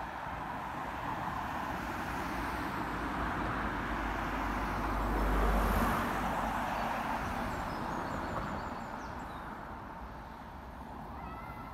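A car passing close by on the road: tyre and engine noise that swells to a peak with a low rumble about halfway through, then fades as it drives away. Faint birdsong near the end.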